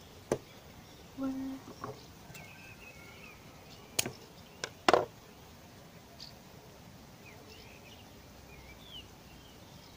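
Tabletop handling sounds as a short length of thin wire is picked up and bent into a loop by hand: a few sharp clicks and taps, the loudest about four and five seconds in. Faint bird chirps in the background.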